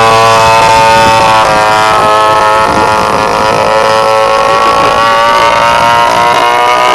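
RC model aeroplane's motor running, its pitch stepping up and down with throttle changes about a second and a half in and again near five seconds.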